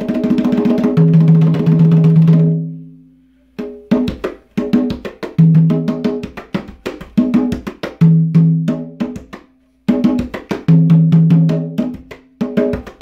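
A pair of congas played by hand in a Latin rhythm, with sharp slaps and ringing open tones; the drums have not been tuned. The playing dies away about three seconds in, starts again a moment later, and breaks off briefly again just before ten seconds.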